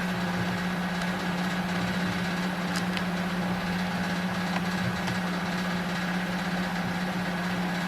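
A steady low mechanical hum, even in level, with a few faint light clicks about three seconds in and again near the middle.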